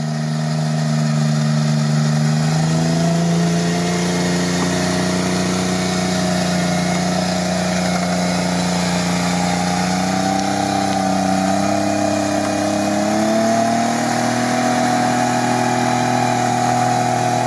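Engine of a modified Toyota 4Runner on GAZ-66 axles running steadily under load as it crawls up a steep sandy bank out of a creek, the engine note rising a little in pitch a couple of times.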